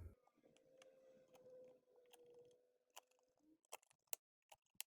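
Near silence with a faint steady hum, then a handful of short, sharp clicks and taps in the second half from handling the laptop's plastic base and its rubber foot strip.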